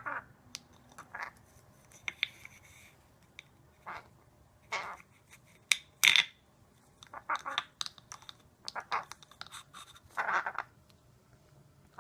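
A parrot giving short, harsh calls every second or two, with scattered sharp clicks between them.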